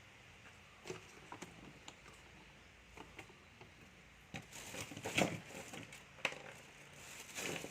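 Scattered small clicks, taps and rustles of objects being handled on a workbench, sparse at first and busier from about four seconds in.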